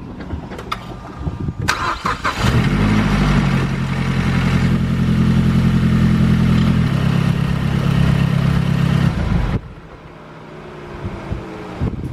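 Mazdaspeed 3's turbocharged 2.3-litre four-cylinder is cranked and starts about two seconds in, then runs at a steady fast idle. This is the first start after an oil change with fresh oil. The engine sound drops off sharply about nine and a half seconds in.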